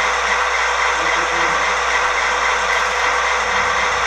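Proto-Sound 3.0 system in an MTH HO-scale Dash-9 model locomotive playing its diesel engine idle sound through the model's small speaker: a steady, even rumble with a constant low hum.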